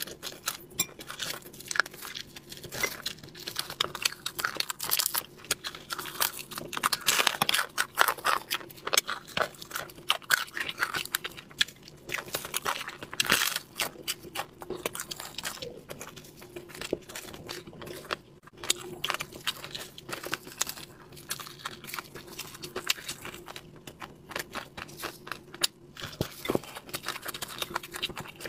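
Crispy fried fish coated in chili powder being torn apart by hand, bitten and chewed, with dense, irregular sharp crunches and crackles throughout.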